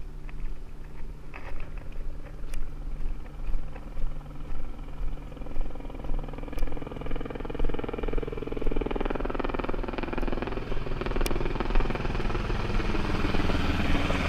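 Engine drone growing steadily louder over the second half, over a steady low hum. Through the first half come regular soft footfalls on a metal and concrete dock.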